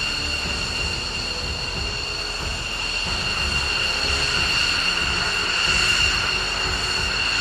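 F-15 Eagle jet engines whining steadily at a high pitch over a low rumble, growing slightly louder in the second half.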